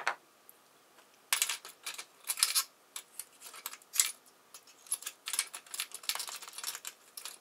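Small metal Allen keys and screwdriver bits being handled: a click, then after about a second a run of irregular clinks, clicks and light jangles.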